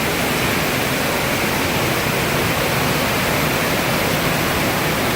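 Waterfall crashing steadily: an even, unbroken rush of falling water.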